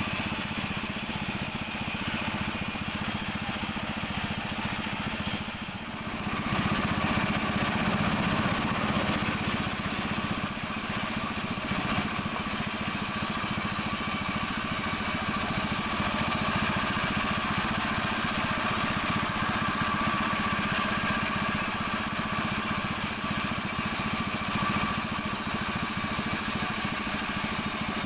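Engine-driven sawmill machinery running steadily, with a brief dip about six seconds in before it runs on a little louder.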